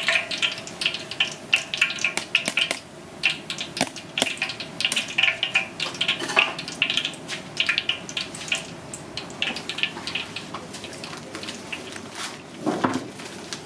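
Hot cooking oil sizzling with dense, irregular crackles and pops. Near the end comes a short rustling scrape as a knife slits a plastic packet.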